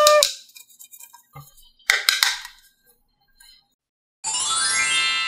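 Added cartoon sound effects: the end of a short tone at the start, a sharp clink about two seconds in, then a shimmering magic chime that sweeps up in pitch for the last second or so.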